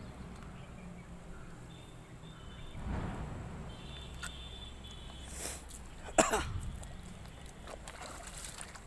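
Footsteps crunching over loose stones and splashing through shallow water, with a sharp loud knock about six seconds in.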